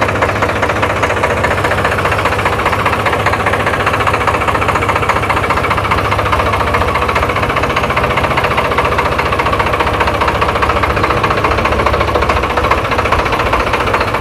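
2009 Farmtrac 65 EPI tractor's three-cylinder diesel engine running steadily while the tractor drives slowly, a fast, even knock of firing pulses.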